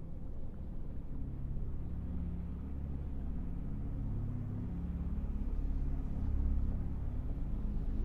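Low, ominous rumbling drone: deep sustained tones that shift in pitch, swelling about six seconds in.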